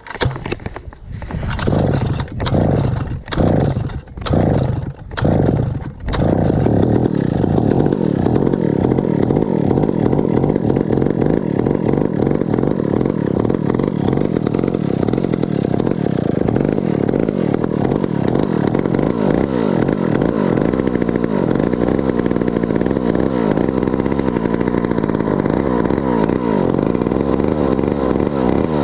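Stihl 051 two-stroke chainsaw being pull-started on choke. It fires in five or six short bursts over the first six seconds, then catches and runs steadily.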